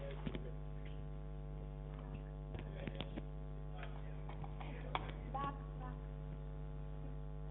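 Steady electrical mains hum, a low drone with a ladder of overtones, broken by a few faint clicks and taps.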